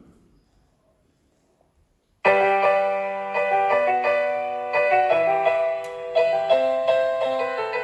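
Piano music played through a Dell XPS 15 9570 laptop's built-in speakers, starting suddenly about two seconds in after near silence, to show the vibration/reverb problem the owner hears in them.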